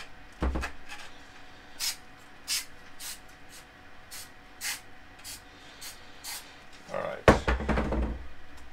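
Aerosol spray-adhesive can giving a series of short hisses over the paper, then a sharp knock as the can is set down on the table about seven seconds in.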